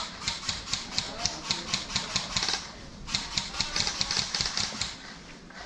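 Airsoft guns firing in rapid strings of sharp, even clicks, with a short pause about two and a half seconds in before the clicking resumes.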